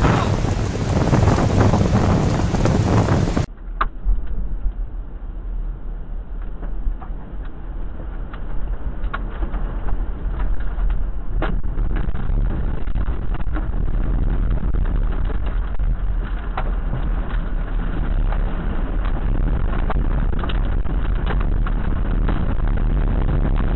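Loud, heavy rain and storm noise, then, about three and a half seconds in, a sudden change to a steady low rumble of wind buffeting the microphone with scattered sharp clicks.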